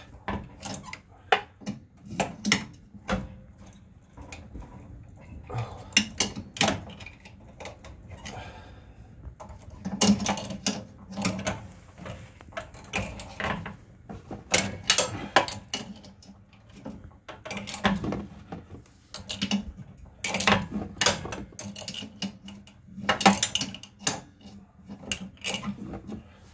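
Adjustable wrench clicking and clinking against the oil drain plug of an Ariens 28 Deluxe SHO snowblower as the plug is backed off, in a run of irregular sharp metal clicks and knocks.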